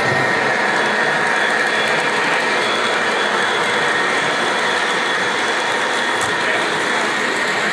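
Model trains running on a large layout: a steady mechanical whir and rattle of wheels on track.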